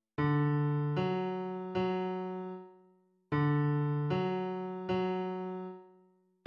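Cello part played back by music notation software in a piano-like tone: two groups of three low notes, each note struck and then fading, with a short break between the groups.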